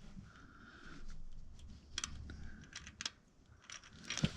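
Faint metal scraping and a few light clicks of a hand tap being turned in the stripped timing chain guide bolt hole of a GMC Terrain 2.4 L cylinder head, cutting new threads.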